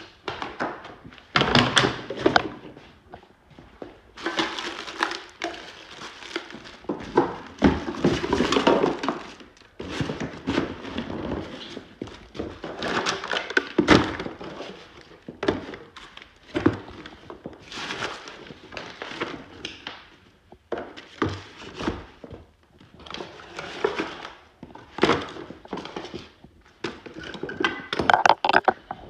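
Irregular thuds, knocks and clattering of junk and trash being handled and dropped during a house clean-out, with stretches of scraping and rustling in between.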